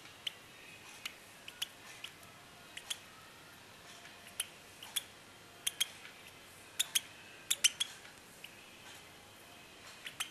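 Two-week-old lovebird chick making short, sharp clicking chirps at irregular intervals, some in quick pairs.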